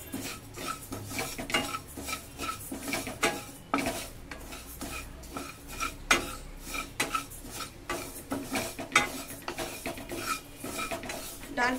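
Wooden spatula scraping and stirring dry split moong dal around a pan as the lentils dry-roast, in a run of irregular scraping strokes.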